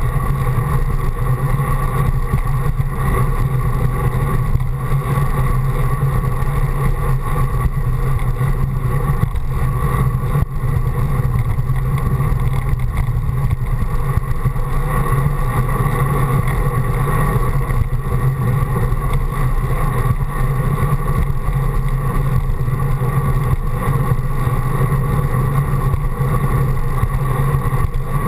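Steady wind rush on a GoPro's microphone, with tyre rumble from a road bicycle rolling on pavement: a constant low noise.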